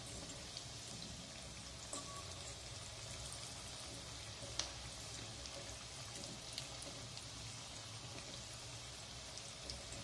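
Breadcrumb-coated potato and vegetable nuggets deep-frying in hot oil: a steady fizzing hiss with small crackles. A few light clicks of a spoon against the pan come as the nuggets are turned over.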